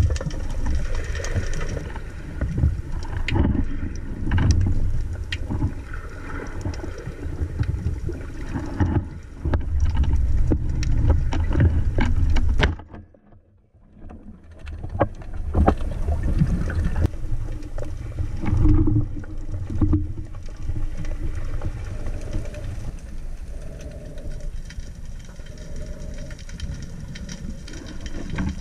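Underwater noise heard through a camera's waterproof housing as a freediver swims: a steady low rumble of moving water with scattered clicks and knocks. It drops out briefly about halfway through.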